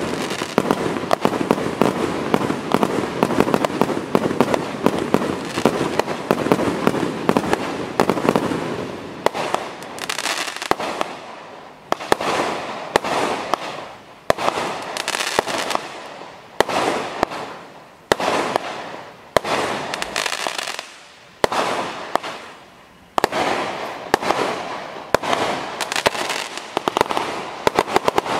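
Celtic Fireworks Beijing Blitz 36-shot barrage cake firing, each shot bursting into a crackling peony. For the first eight seconds or so the shots and crackle run together densely; after that single shots come about once a second, each followed by a fading crackle.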